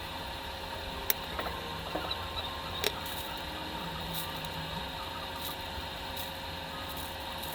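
A steady hum with a few light sharp clicks or taps.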